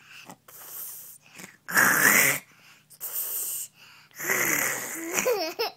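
A toddler imitating snoring: rasping, wheezy breaths, loudest about two seconds in and again about four seconds in.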